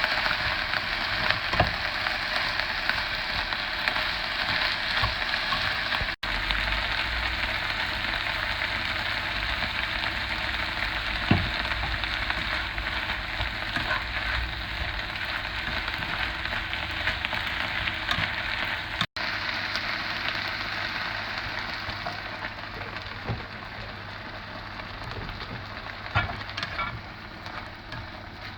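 Instant noodles stir-frying in a pan, sizzling steadily, with a few short knocks as they are stirred; the sizzle gradually dies down over the last several seconds.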